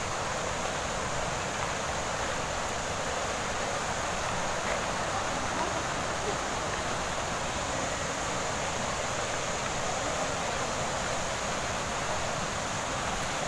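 Steady rushing of flowing water from a stream or waterfall, an even hiss with no breaks.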